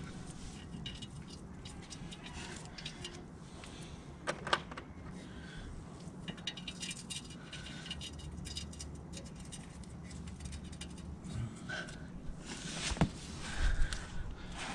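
Light metallic clinks and rattles of hand tools and brake parts being handled at a car's front brake hub, with a few louder sharp knocks about four seconds in and near the end.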